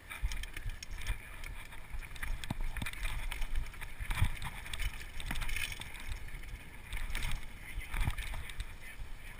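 Downhill mountain bike being ridden over a rough trail, heard close up from a chest-mounted camera: a steady rumble from the tyres and frame over dirt and rocks, with many short clicks and knocks as the bike rattles over bumps.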